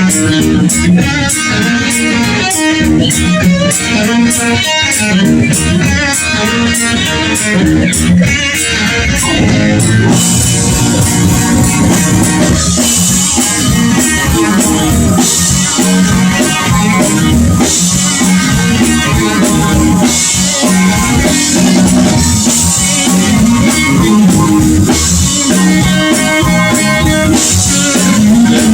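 Live blues-rock band playing: electric guitar over bass and drum kit. About ten seconds in the band fills out and the cymbals come in strongly.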